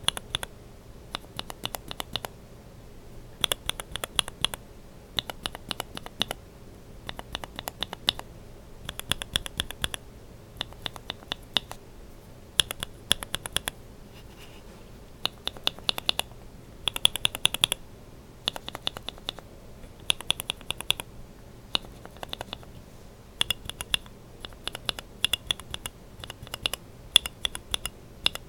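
Two linear mechanical keyboard switches with Kailh burgundy stems, one in a BSUN Brown housing with a Yok top and one in a GSUS housing, pressed quickly in short runs. Each press gives a sharp plastic clack at bottom-out and top-out, and the runs of clacks repeat about once a second.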